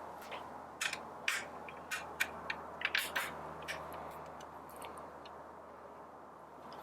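Irregular light clicks and taps of small grinder parts being handled and fitted by hand, as the lever knobs go back onto the adjustment levers; the clicks come thickly for about four seconds, then thin out.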